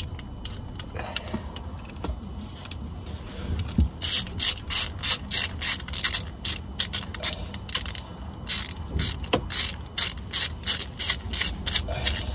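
Hand socket ratchet clicking in quick back-and-forth strokes, about three a second, starting about four seconds in with a brief pause near the middle, as it runs down a mounting bolt on a new clutch slave cylinder.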